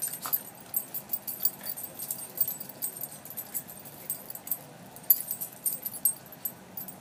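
Small dogs play-wrestling: collars and tags jingling and paws scuffling on concrete in quick, irregular clicks.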